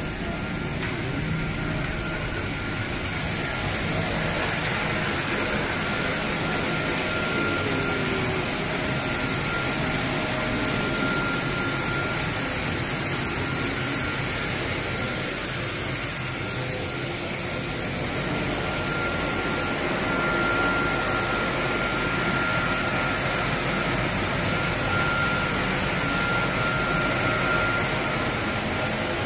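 Sawdust briquette production-line machinery running steadily: drum dryer, blower fans and electric motors making a constant rushing hum with a faint steady whine above it.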